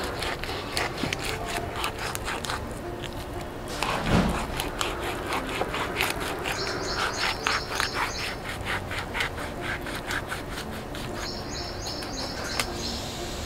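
Kitchen knife slicing and scraping along a vaam fish on a wooden log chopping block, in many short rasping strokes, with a thump about four seconds in. A bird chirps in two quick runs of short notes.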